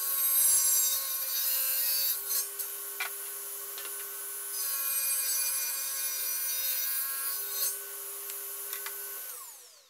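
Table saw running while an oak board is fed through its blade, cutting twice: once in the first couple of seconds and again from about four and a half to seven and a half seconds in. Near the end the saw is switched off and the blade spins down, its whine falling away.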